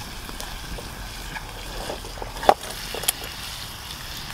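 Rabbit pieces sizzling in butter in a frying pan over a wood campfire: a steady hiss, with a couple of sharp clicks, the loudest about two and a half seconds in.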